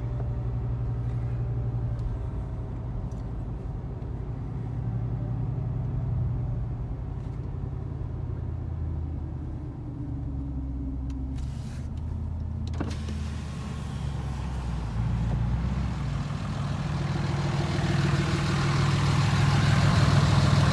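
Diesel pickup truck engine running at low speed with a steady low hum. The hum shifts in pitch around the middle and grows louder over the last few seconds.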